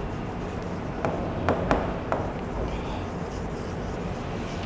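Stylus writing on the glass screen of an interactive display: faint scratching strokes with a few sharp taps about one to two seconds in, over a steady low hum.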